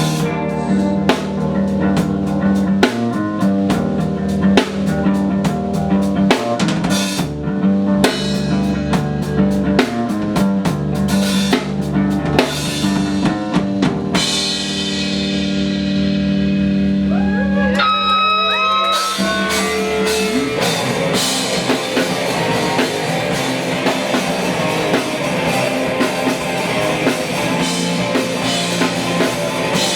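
Band playing an instrumental passage on drum kit and guitar. Steady drum hits give way about halfway to a held, ringing chord with sliding guitar notes, then the full band comes back in denser.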